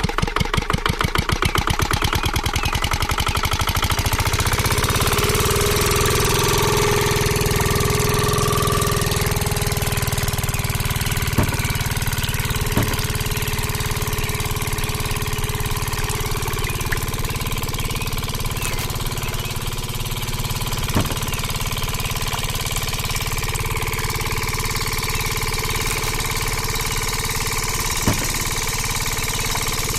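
Small engine running: distinct rapid firing beats in the first few seconds settle into a steady hum, with a few sharp clicks or knocks later on.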